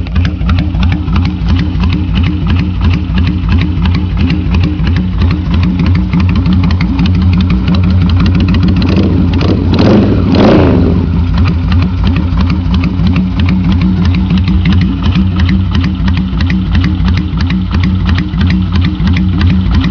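Honda Shadow 600 VLX V-twin engine idling through Cobra shotgun exhaust pipes. About halfway through, it gives one quick rev that rises and drops back to idle.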